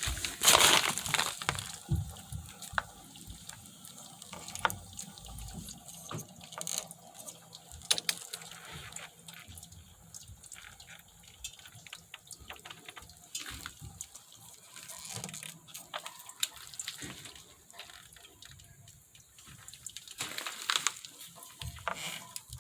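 Water dripping and trickling from a leaking hot water heater, with many irregular clicks and knocks.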